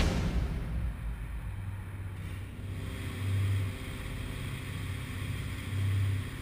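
Single-engine aerobatic propeller plane's engine droning, with a low rumble that swells louder twice, about three and six seconds in.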